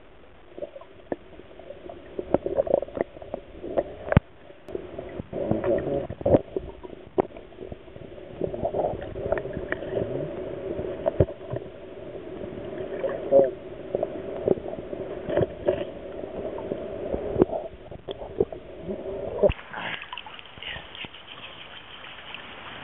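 Muffled underwater sound picked up by a submerged camera: a dull, steady drone of river water with many knocks and taps from the housing being handled. Near the end the camera comes out of the water and the sound changes to the open hiss of a rushing river.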